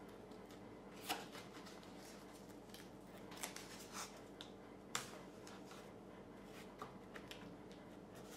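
Masking tape being pressed and smoothed around a Kydex cheek rest on a rifle stock: soft rubbing and handling with several sharp crackles and taps, over a faint steady hum.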